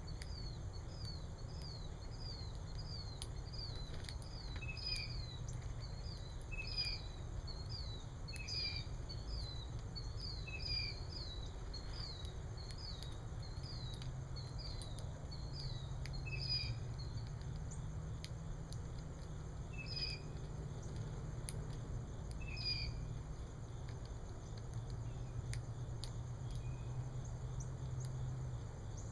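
Small bird chirping: a run of short high chirps, about two a second, for roughly the first half, then a few scattered chirps, over a steady low background rumble.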